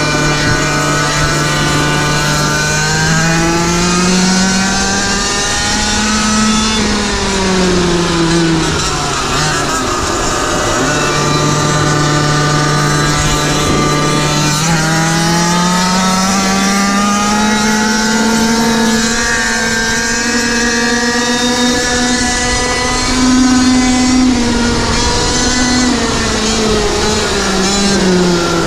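GoPed GoQuad's small engine running hard, heard from on board. Its pitch climbs about three seconds in, drops around nine seconds, holds steady, then climbs again from about fifteen seconds, stays high, and eases off near the end.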